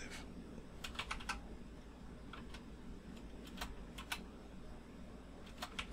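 Faint, irregular clicking of a computer keyboard, a few keystrokes at a time with pauses between, as values are entered.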